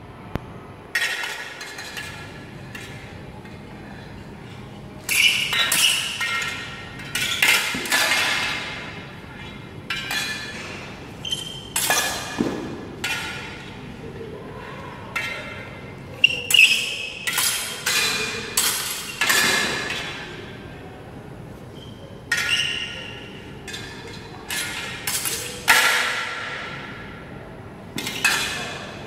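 Steel practice swords clashing against each other and against metal bucklers in bursts of several quick strikes with pauses between, each hit ringing out and echoing in a large hall.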